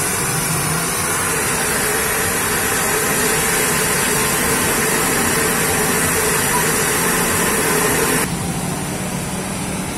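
Steady sizzle of food deep-frying in a wide wok of hot oil over a gas burner. It drops sharply to a quieter hiss about eight seconds in.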